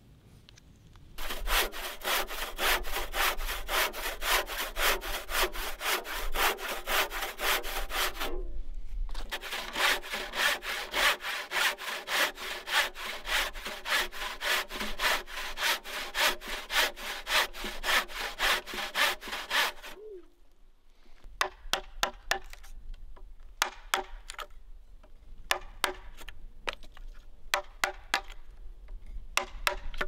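A handsaw cutting across a softwood timber in quick, even strokes, pausing briefly about eight seconds in. The sawing stops about twenty seconds in, followed by scattered sharp clicks of a chisel paring the timber's end.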